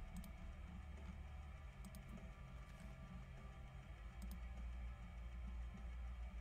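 Quiet room with a low steady hum and a few soft double clicks, about two seconds apart.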